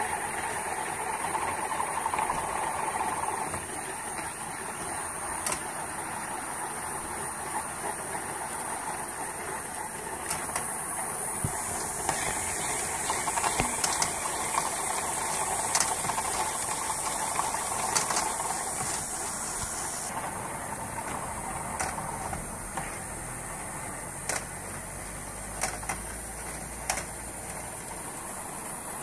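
Balls rolling along the plastic tracks and spiralling round the plastic funnels of a running Bandai Spacewarp ball coaster: a steady rolling rattle, with a few sharp clicks as balls strike track pieces.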